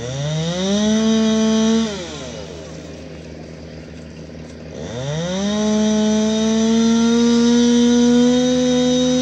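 Two-stroke chainsaw run up to full throttle twice: a short burst of about two seconds, then idling, then a longer full-throttle run of about four seconds from about halfway in, its pitch creeping slightly higher before it cuts back near the end.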